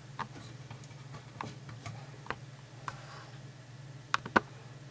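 Scattered light clicks and taps from hands handling the opened satellite receiver and its cables, the loudest a quick pair about four seconds in, over a steady low electrical hum.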